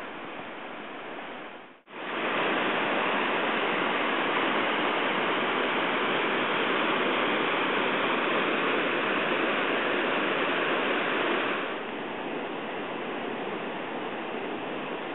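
River rapids: a steady rush of whitewater. It breaks off for an instant about two seconds in, comes back louder, and eases a little about twelve seconds in.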